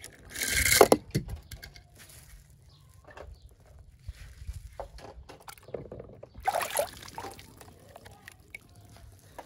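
Water splashing and sloshing twice, about half a second in and again near seven seconds, with small clicks of plastic toy cars being handled in between.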